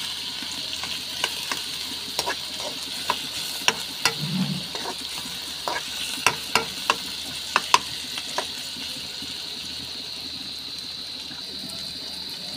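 Sliced onions and garlic sizzling in hot oil in a pan, sautéing toward golden brown. A spatula clicks and scrapes against the pan as they are stirred; the clicks stop about two-thirds of the way through, leaving the steady sizzle.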